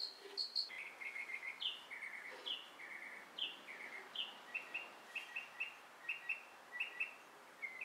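A small songbird singing: quick series of short, high chirps and brief trills, repeated phrase after phrase.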